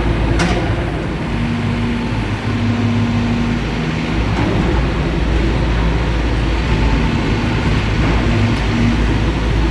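Caterpillar 420 backhoe loader's diesel engine running steadily, its pitch stepping up and down as it works. There is one sharp knock about half a second in.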